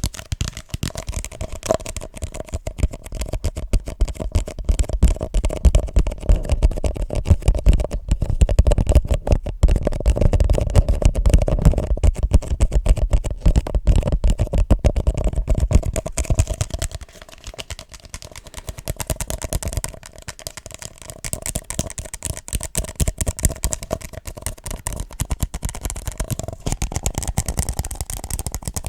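Fast, continuous tapping and scratching with fingers and nails on objects, the taps too quick to count. It drops quieter briefly about 17 seconds in and again about 20 seconds in, then picks back up.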